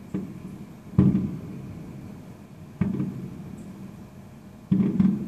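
Aerial fireworks shells bursting, each boom followed by a low rolling echo: a small one at the start, the loudest about a second in, another near three seconds, and two in quick succession near the end.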